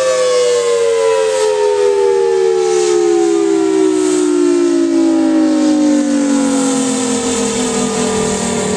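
Federal Signal Thunderbolt 1000T tornado warning siren winding down at the end of a short test alert, its pitch falling steadily lower while it stays loud.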